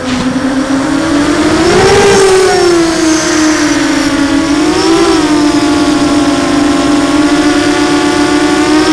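Blackout Mini H FPV quadcopter's brushless motors and propellers whining steadily, heard from its onboard camera, the pitch rising briefly with throttle about two seconds in and again about five seconds in.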